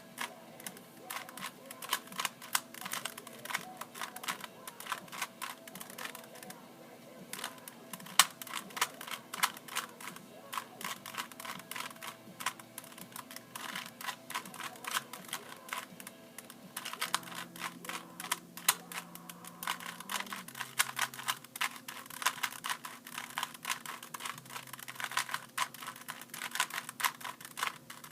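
Rubik's cube being turned fast by hand: dense runs of quick plastic clicks and rattles, with brief pauses.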